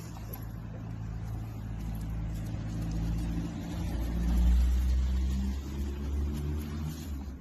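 Low rumble of a motor vehicle engine running, growing louder about four seconds in and then easing off.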